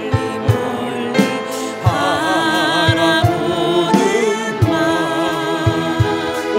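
Korean gospel hymn with instrumental backing and a steady bass beat. A voice sung with vibrato comes in about two seconds in.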